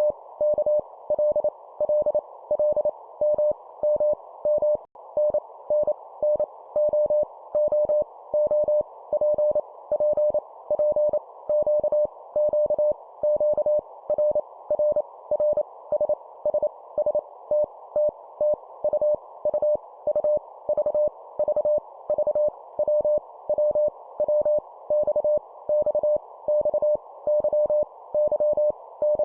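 Morse code at 25 words per minute: a single mid-pitched sidetone beep keyed on and off in short dots and longer dashes, each letter sent three times, over a steady background hiss.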